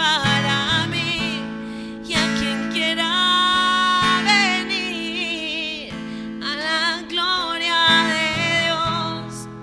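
A woman sings a slow worship song in long held notes with vibrato, accompanied by a strummed acoustic guitar.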